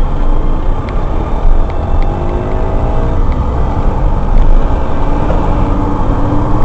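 Car driving, with loud, steady engine and road noise. About a second and a half in, an engine note rises in pitch, and there are a few faint ticks.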